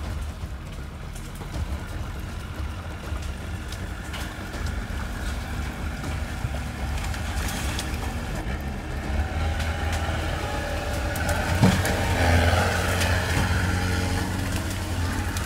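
Engine of a large-wheeled Shatun articulated ATV running at low speed as it goes down into a creek ravine. It gets louder under load about two-thirds of the way in as the machine climbs the steep far bank, with one sharp knock about twelve seconds in.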